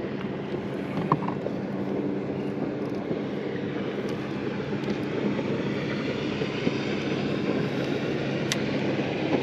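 Boat motor running steadily under wind and water noise, with a sharp click about a second in and a fainter one near the end.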